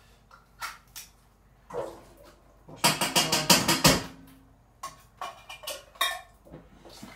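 Clinks and clatter of tins and kitchenware being handled at a sink, with a dense run of rattling clinks about three seconds in and scattered single knocks around it.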